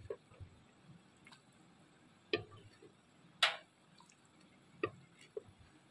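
A ladle scooping soft boiled onions and tomatoes out of a clay pot: about five scattered light taps and scrapes of the ladle against the clay, with small wet squishes. The loudest tap comes about three and a half seconds in.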